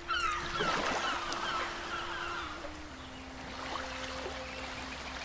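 A flock of birds calling in quick, repeated short falling squawks, thinning out after about two and a half seconds. Under it runs a low steady tone that steps down in pitch about three seconds in.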